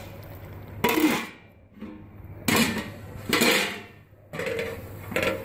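A flat steel lid being set on an aluminium cooking pot, with a few short metallic clanks and scrapes.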